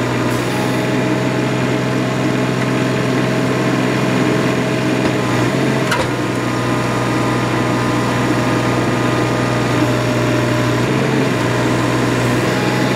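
Small engine of the hydraulic power pack driving a hydraulic cable puller, running at a steady speed as the puller starts drawing a new sewer pipe through the old line. A single sharp click about six seconds in.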